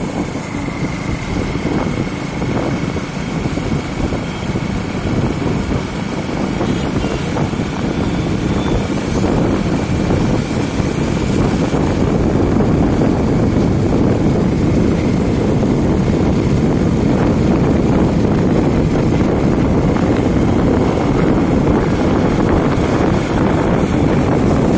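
Motorbike riding at speed: engine drone buried in a steady rush of wind on the microphone, growing a little louder about halfway through.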